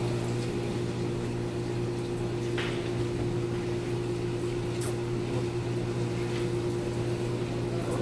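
Water-circulating pump motor of an Armfield pipe-flow rig running with a steady hum. There are a couple of light clicks as small ball valves on the manometer tapping manifold are turned.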